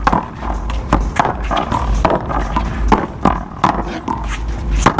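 A one-wall paddleball rally: sharp smacks of the paddles on the rubber ball and of the ball off the wall, about two a second, over a low pulsing rumble.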